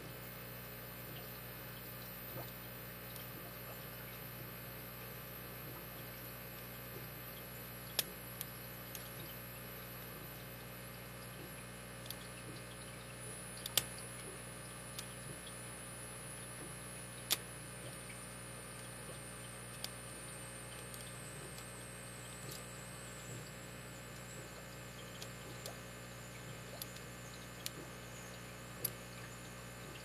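Irregular small clicks of a lock pick and tension wrench working the pin stack of a Master Lock 4160 V-line 60 mm brass padlock, a few of them sharper, over a steady low hum.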